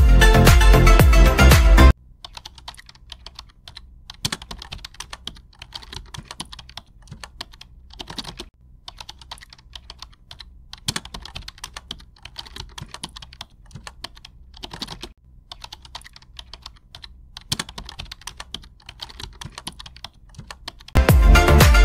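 Music plays briefly, then gives way to a writing sound effect: quick, irregular clicking and scratching strokes in short runs with brief gaps. The music comes back near the end.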